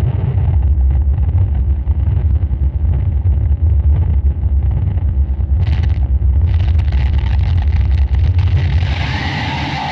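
Harsh noise / drone music: a dense wall of distorted noise with a heavy low rumble, getting louder at the start. A brief hiss flares up a little past the middle, and from then on a brighter hiss spreads over the rumble.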